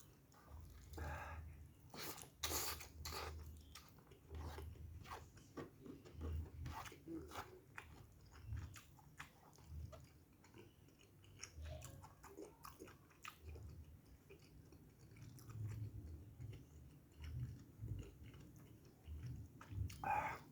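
A person chewing and biting food close to the microphone, with irregular wet clicks and small crunches over soft low thuds of the jaw.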